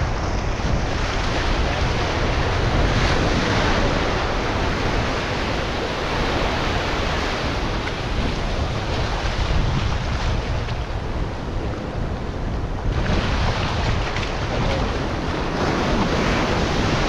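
Ocean surf washing and breaking on a sandy beach, a steady rush of foaming water, with wind rumbling on the microphone.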